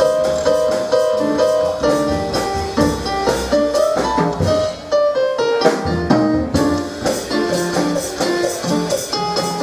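Jazz sextet playing an original tune live: several instruments in lines over a steady beat.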